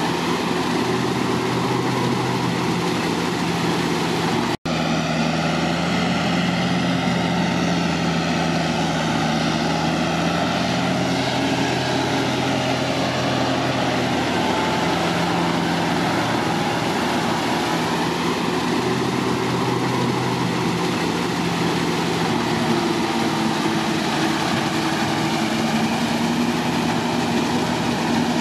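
Kubota tractor's diesel engine running steadily under load as it pulls a rotary tiller through wet mud on steel cage wheels. The sound cuts out for an instant about four and a half seconds in.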